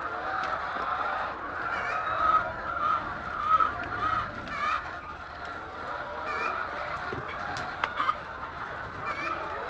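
A flock of poultry calling over one another in a steady din of clucks and squawks, with a few short clicks about eight seconds in.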